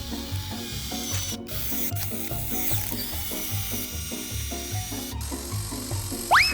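Upbeat background music with a steady, bouncy beat. Near the end a quick rising whistle sound effect plays over it.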